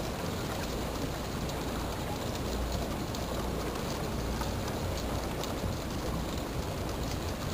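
A motor launch pushing through thin lake ice: broken ice shards crackling and clinking against the hull amid the rush of churned water, over a steady low engine drone.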